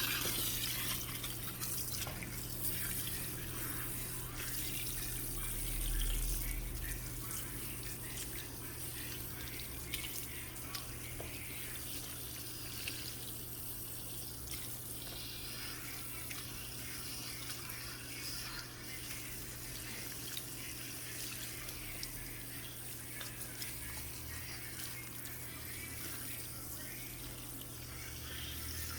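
Water running steadily from a salon shampoo-bowl sprayer as chemical relaxer is rinsed out of hair, with a few faint clicks and a steady low hum underneath.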